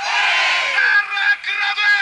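Football supporters shouting and singing together in the stands as a chant starts up, with long held notes.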